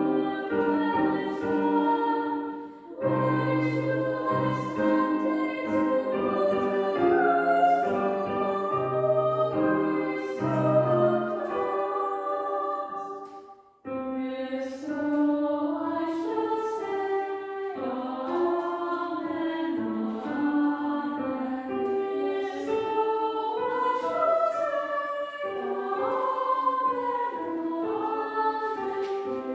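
Youth choir singing in parts, with sustained, slow-moving notes and low held tones beneath the first half. The singing falls away to a brief pause about halfway through, then begins again.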